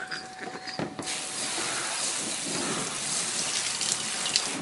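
Water spraying from a hose's spray nozzle onto a fish-cleaning table, a steady hiss that starts about a second in and stops just before the end.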